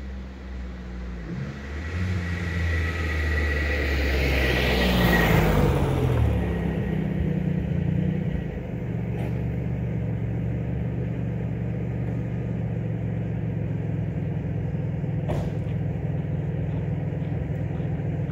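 A Chevrolet Beretta's 60-degree V6 through a custom 2.5-inch exhaust with a fiberglass-packed muffler and a spring-loaded valve drives past. It is loudest about five seconds in, its pitch dropping as it goes by, then settles into a steady idle.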